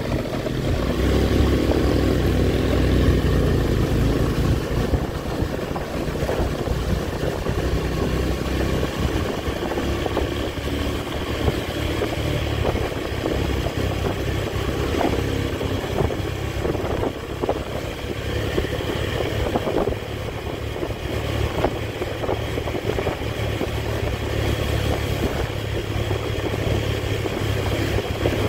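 Honda Tiger motorcycle's single-cylinder four-stroke engine running steadily while being ridden, under an even rush of road noise.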